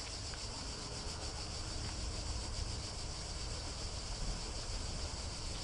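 Steady background noise: a low rumble under a constant high hiss, with no distinct events.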